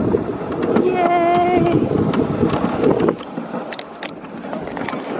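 Dog sled moving over a snow trail: a steady rushing of the runners on snow and wind on the microphone, with a cheerful shout of "Yay!" about a second in. The rushing drops off to a lighter hiss about three seconds in.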